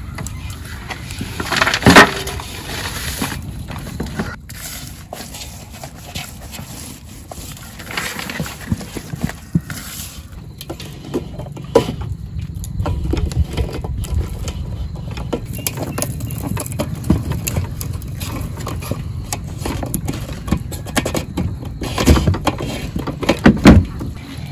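Handling noise with scattered clicks and sharp knocks as a large seasoned fish is worked in a steel basin and clamped between split bamboo sticks. The loudest knocks come about two seconds in and twice near the end.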